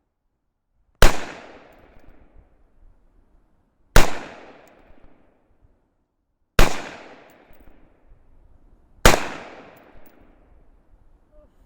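Four single shots from an AR-15 rifle, spaced about two and a half to three seconds apart. Each is a sharp crack followed by an echo that fades over about a second.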